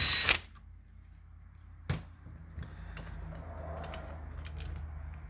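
Power drill/driver running at speed and stopping suddenly about a third of a second in, as screws are backed out of a door handle. A sharp click follows about two seconds later, then light clicks of the handle parts being handled.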